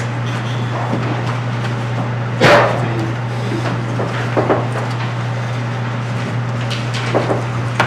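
Steady low electrical hum of the room's sound system, broken by one loud short thump about two and a half seconds in and a few fainter knocks afterwards.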